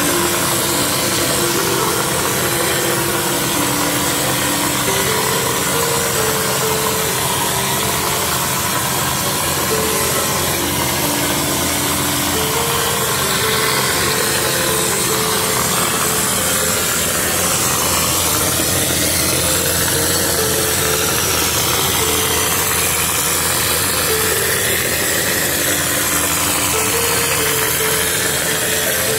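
Spray-plastering machine running steadily while cork-lime insulating plaster is sprayed through the hose and spray gun. There is a constant hiss of compressed air over a steady motor drone.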